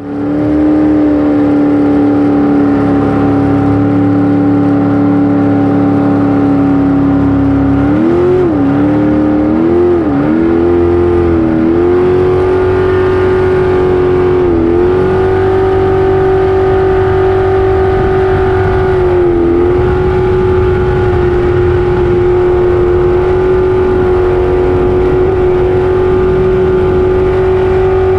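Race jet boat's engine running loud and steady at speed, heard from on board. About eight seconds in, the pitch climbs with a few quick dips and recoveries, then holds higher, dipping briefly twice more.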